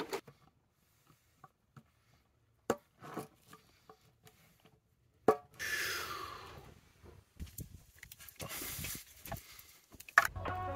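Metal tin of Hempel Classic antifouling paint being opened by hand: scattered small clicks and taps, a sharp click about halfway, then a scraping rub as the lid comes off, followed by more rubbing and handling. Music starts just before the end.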